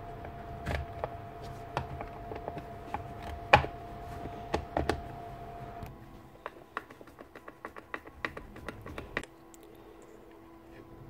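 Clicks, taps and knocks of the hard plastic motor housing of a Milwaukee cordless magnetic drill being handled and fitted to its gearbox on a workbench, with one sharper knock about three and a half seconds in and a quicker run of light clicks from about six to nine seconds. A faint steady hum lies underneath.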